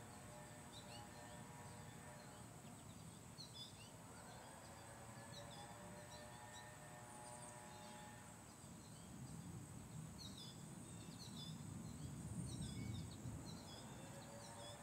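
Quiet neighbourhood ambience: small songbirds chirping in short high calls throughout, over the engine whine of a distant leaf blower that rises and falls in pitch. A low rumble swells about twelve seconds in.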